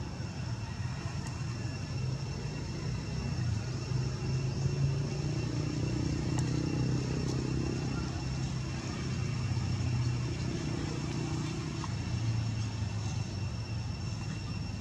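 Low engine drone of a motor vehicle running nearby, swelling for several seconds in the middle and easing off again, over a steady high thin whine.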